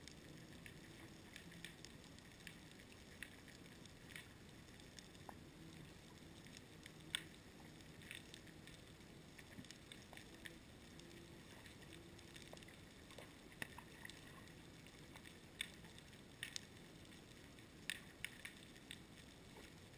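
Faint underwater sound picked up by a camera in a waterproof housing: a low hiss and hum broken by scattered sharp, irregular clicks, a few each second, the strongest about seven seconds in.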